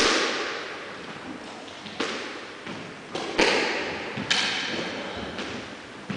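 Squash rally: the ball is struck by rackets and smacks off the court walls, about half a dozen sharp impacts at uneven intervals, each ringing on in the court's echo.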